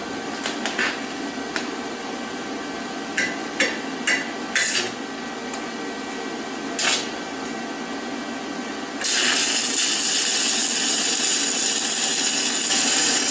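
Several short taps and scrapes of a used 7018 stick electrode, its tip capped with slag, against the steel workpiece as the welder tries to restrike the arc. About nine seconds in the arc catches, and the stick weld burns with a steady hiss for the last few seconds.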